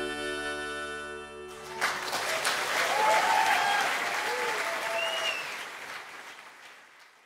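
The song's last chord holds steady and stops about a second and a half in. A crowd then applauds with a few cheers, and the applause fades out.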